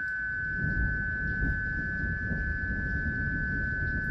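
HF transceiver's speaker giving out dense crackling static, mostly low in pitch, that comes in suddenly at the start, with a steady high tone running through it. It is the band noise the operator is trying to get rid of with the noise blanker.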